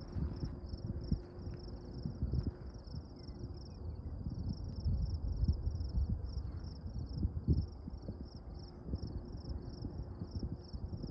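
Insect chirping in a steady, even pulse of about three chirps a second, over gusty wind rumbling on the microphone.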